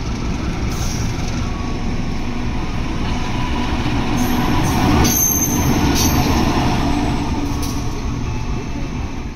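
A train running past on the rails: a steady rumble and rattle of wheels on track, with a few sharp clacks, loudest around the middle.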